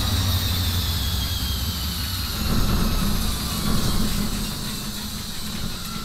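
Washing machine drum spinning down: a low rumble with a motor whine that slowly falls in pitch, fading over the last few seconds.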